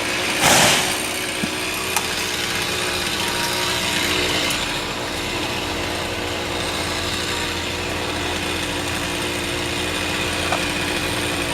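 Chainsaw engine idling steadily, with a brief louder burst about half a second in.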